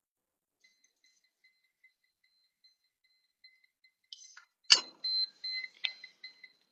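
Electronic beeping: a thin, high beep repeating rapidly, like an alarm or device chime. About three quarters of the way in comes a sharp, loud knock, followed by a few more knocks and handling noise while the beeping carries on.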